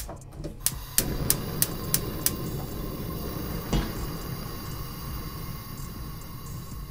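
Gas stove's spark igniter clicking about three times a second, with the burner catching about a second in and then running with a steady low rush of flame. One knock sounds near the middle.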